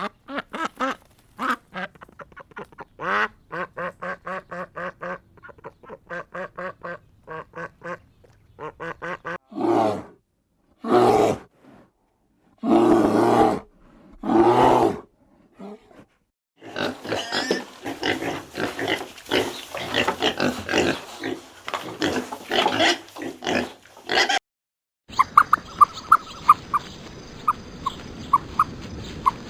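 Farm animals calling in a string of separate clips: first a fast run of short calls, then several long, loud calls, then a dense stretch of overlapping calls, and near the end a new scene with a steady high whine and quick ticking chirps.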